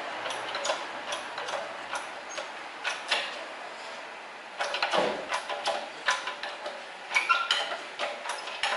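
Hydraulic shop press pushing a car's drive shaft out of the wheel hub and bearing in a steering knuckle: a run of irregular metallic clicks and ticks, with a louder knock about five seconds in.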